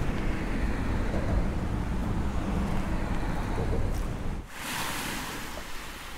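Wind buffeting an outdoor microphone: a heavy, steady low rumble under a rushing hiss. About four and a half seconds in, the rumble cuts off suddenly, leaving a softer, higher hiss.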